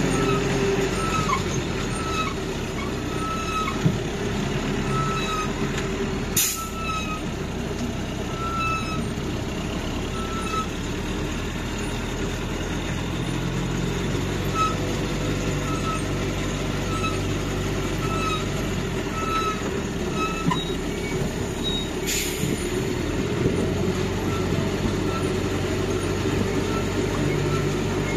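Land train's engine running steadily while a short high beep repeats about every 0.7 s, stopping about three quarters of the way through. Two short, sharp sounds cut across it, about a quarter of the way in and again near the end.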